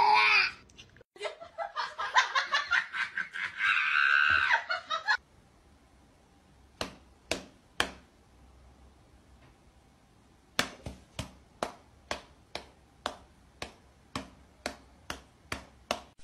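A person laughing, then light sharp slaps of a cat's paws against a person's open hand: a few at first, then a quick even run of about three a second.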